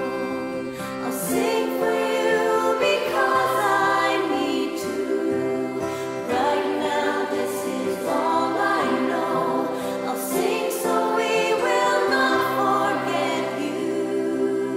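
A slow song: a woman's voice singing long held notes, with choir-like backing voices and instrumental accompaniment.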